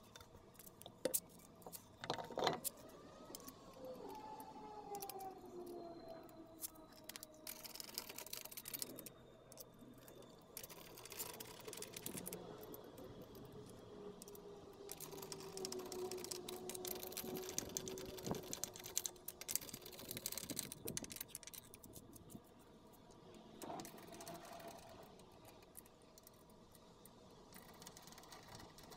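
Steel lug nuts clicking and clinking as a wheel is hung on the hub and the nuts are threaded on by hand, with scattered sharp knocks, the loudest about two seconds in. A faint tone slides slowly in pitch in the background through the middle.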